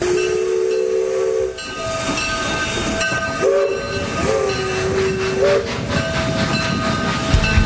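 A train running with a steady noisy hiss and rumble, its horn sounding a chord of several steady notes twice, about a second and a half each time. Rock music with a driving beat comes in just before the end.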